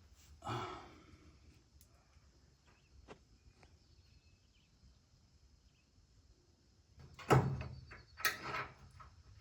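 Parts being handled during mower wheel and spacer work: a few faint clicks, then two loud knocks about a second apart near the end.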